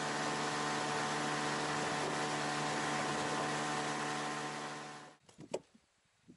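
Boat outboard motor running at a steady speed, an even drone that fades out about five seconds in. After it, a few faint clicks and one brief sharp click.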